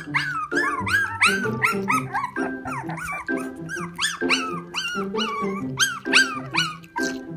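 Chow Chow puppies whining and squeaking while bottle-feeding: many short, high cries that rise and fall, in quick succession. Background music with steady low notes plays under them.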